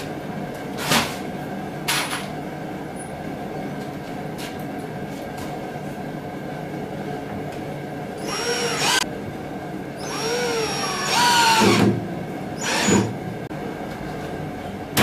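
Cordless drill driving fine-thread pocket-hole screws into a cherry face frame: a short run about eight seconds in, then a longer, louder run about ten seconds in and a brief one near thirteen seconds, the motor pitch rising and falling as each screw drives in and seats. A couple of knocks come in the first two seconds.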